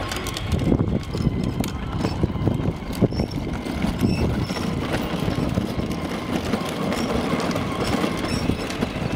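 Hard plastic wheels of children's ride-on toys, including a toy tractor, rolling and rumbling over a concrete driveway.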